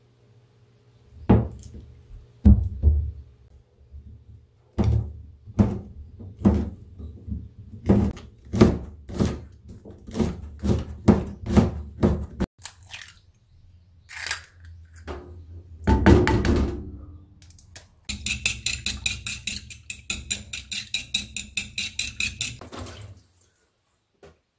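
Kitchen knife chopping on a plastic cutting board: a few cuts through a block of tofu, then slicing green onion in steady chops about two a second. Near the end comes a quicker run of taps, about four a second.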